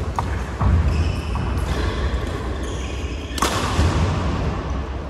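Badminton rally: racket strikes on the shuttlecock, the sharpest about three and a half seconds in, and shoes squeaking on the court mat, over a steady low hum.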